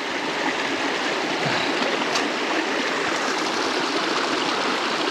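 Steady rushing of a creek flowing over rocks.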